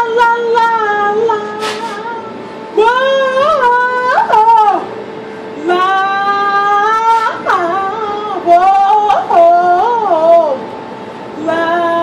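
A woman singing solo and unaccompanied, in long held notes that slide up and down between pitches. The phrases break off with short pauses about two and a half seconds in and again near ten and a half seconds.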